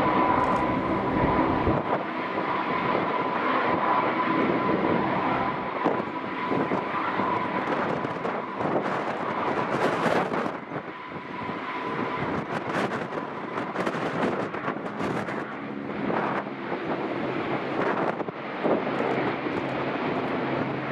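Four Allison T56 turboprop engines of a Lockheed P-3-family patrol aircraft running, with a steady high whine that fades out about halfway through. Wind buffets the microphone in the second half.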